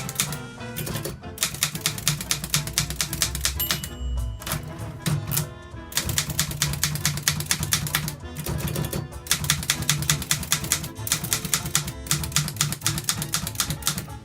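1937 Continental Standard manual typewriter being typed on: a fast run of key strikes, broken by short pauses, with a brief ring about four seconds in. Music plays underneath.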